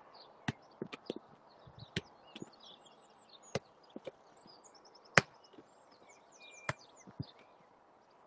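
A football being volleyed with the laces, giving about a dozen sharp, irregularly spaced kicks and thuds, the loudest about five seconds in. Birds chirp in the background.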